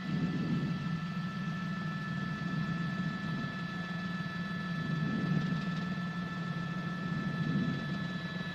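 Steady helicopter engine drone with a constant high turbine whine over it.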